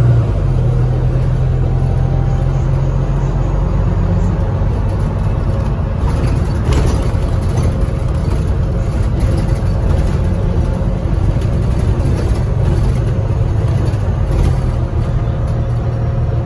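Interior noise of a Volvo B9TL double-decker bus under way: its diesel engine hums steadily with road rumble and light rattles from the body. The engine note eases off after a few seconds and picks up again near the end.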